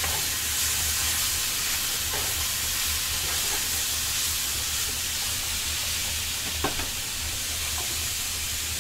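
Chicken sizzling in a frying pan on the stove, a steady hiss, with a few light clicks of the utensil against the pan as it is stirred.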